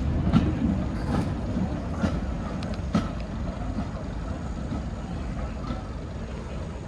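Diesel-hauled train moving away down the line: a low rumble that fades gradually, with a few sharp clicks in the first three seconds.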